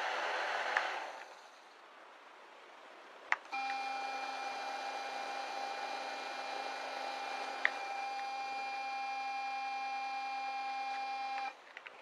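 Small DC motor fan with a plastic propeller whirring, dying down about a second in. After a sharp click it runs with a steady high electric whine, with another click partway through, until the sound cuts off just before the end.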